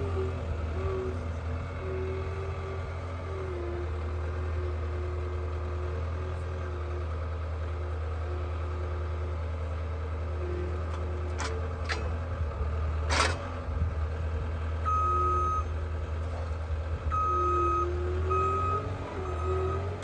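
CAT 226D3 skid steer's diesel engine running steadily, its note wavering as it works. A few sharp knocks come partway through as the log is set on the sawmill's steel bed. After that, the machine's backup alarm beeps on and off as it reverses.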